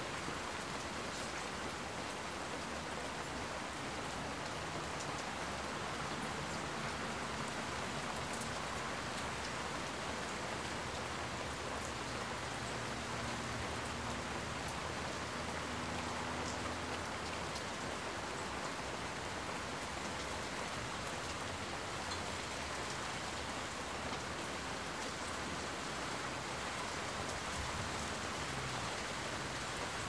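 Steady rain falling, an even hiss with scattered fine drop ticks. A faint low hum sits underneath, a little stronger in the middle.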